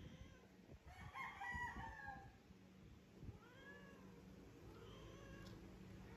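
Cats mating, the female in heat: faint, drawn-out cat yowls. A longer wavering call comes about a second in, followed by shorter arched calls.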